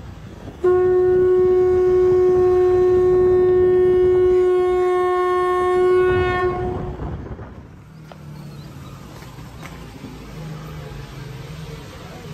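A conch shell blown in one long, steady note lasting about six seconds, starting about half a second in and then fading. After it comes street background noise with the low hum of a vehicle engine.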